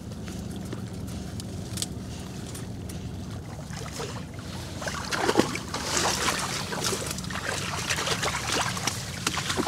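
A retrieving dog splashing and pushing through shallow marsh water and reeds as it brings a shot duck back, with water dripping and stems rustling. The splashing grows louder from about halfway in, over a steady low hum.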